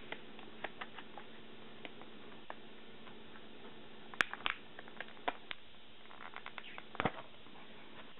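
Thin clear plastic food pack being handled, its walls clicking and crackling in scattered light ticks. A sharper click comes about four seconds in, and a quick run of clicks near seven seconds.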